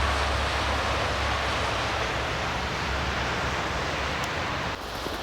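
Steady outdoor background noise: a rushing hiss over a low rumble, which drops off abruptly near the end.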